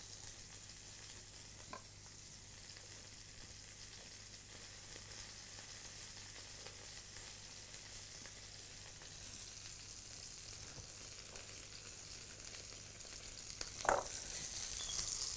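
Faint, steady sizzle of potatoes and potato patties frying in oil in a pan, growing a little louder near the end, with one short knock about 14 seconds in.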